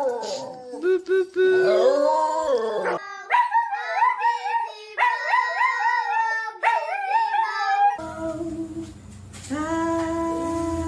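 Dogs howling one after another in long wavering notes that rise and fall, the sound changing abruptly about three and eight seconds in, and ending on a long steady held note.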